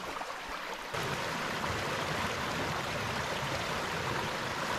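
Small forest creek babbling over little waterfalls: a steady rush of running water that gets louder about a second in.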